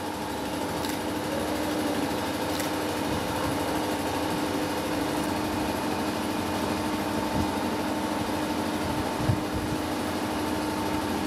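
Steady mechanical hum of a running motor, holding one constant pitch throughout, with two faint clicks in the first few seconds.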